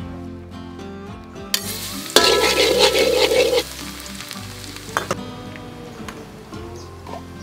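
Minced garlic sizzling in hot oil in a wok. A loud burst of sizzling starts suddenly about two seconds in and dies down after about a second and a half, leaving a fainter hiss.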